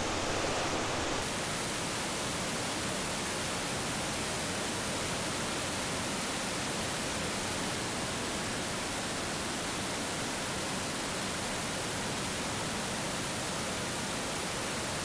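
Waterfall in a rocky gorge running with heavy flow after rain, a steady, even rush of falling water.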